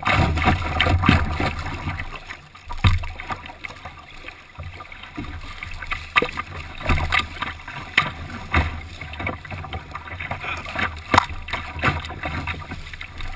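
Canoe running a rapid: rough water rushing past and slapping against the hull, with frequent sharp splashes and knocks over a low rumble, picked up by a camera mounted on the canoe.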